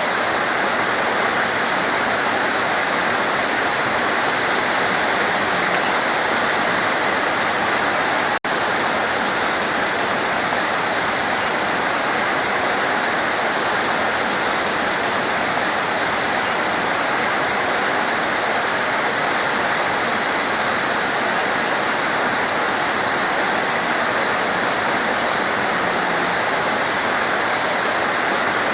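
Heavy, torrential rain pouring steadily in a dense, even hiss, cut for a split second about eight seconds in.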